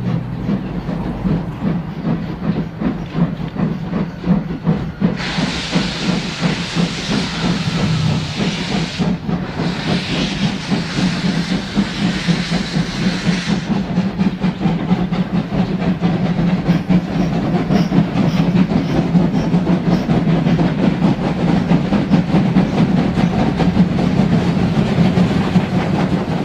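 Model railway train running, its wheels clicking over the rail joints over a steady hum. About five seconds in come two long bursts of hiss, each about four seconds, with a short break between them.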